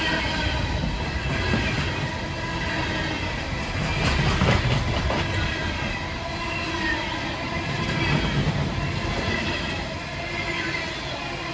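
Empty CSX coal cars rolling past close by: a continuous rumble of steel wheels on the rails, with steady high-pitched squeals held above it and the noise swelling and easing as the cars go by.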